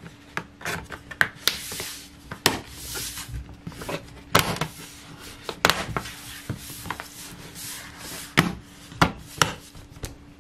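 A laptop's bottom cover being pressed down onto the chassis: a dozen or so sharp, irregular clicks and snaps, with rubbing and handling noise between them.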